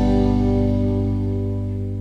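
Background music: a held chord that slowly fades.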